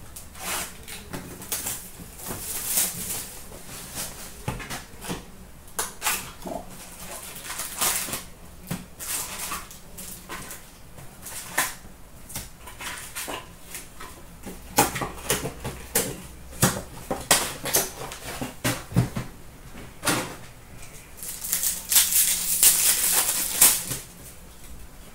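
Hands opening a box of Upper Deck hockey cards and tearing into its packs: crinkling foil wrappers, rustling cardboard and many small clicks and taps of cards being handled, with a longer stretch of crinkling near the end.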